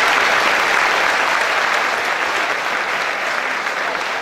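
A large audience applauding steadily, the clapping slowly easing off toward the end.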